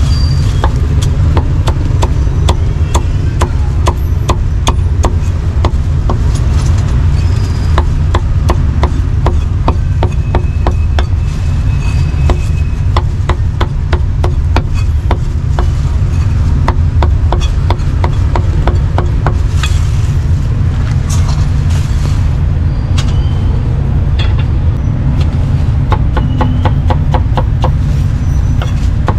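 Cleaver chopping roast pork on a thick round wooden chopping block: quick runs of sharp knocks with short pauses, and lighter cuts through cucumber near the end. A steady low rumble of street traffic runs underneath.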